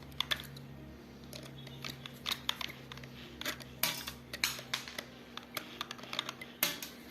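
Light, irregular clicks and small metallic clinks of small metal parts and tools being handled, over a faint steady hum.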